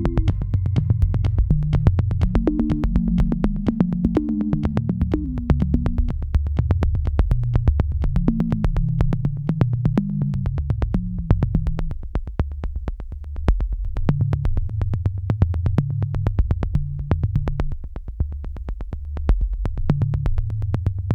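Background electronic music: a synthesizer bass line moving in stepped notes over a steady clicking beat.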